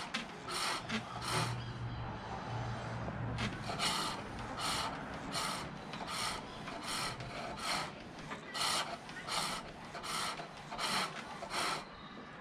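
Green silver birch being cut on a foot-powered pole lathe: a turning tool shaving the spinning wood in rhythmic scraping strokes, about one every 0.7 seconds, each stroke a cut on the treadle's down-stroke. The strokes pause for about a second and a half near the start.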